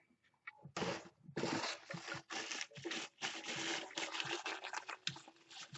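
Rustling and scratching of a parcel's packaging as it is opened and its contents are handled: a quick run of scratchy, rubbing noises that starts about a second in and keeps going.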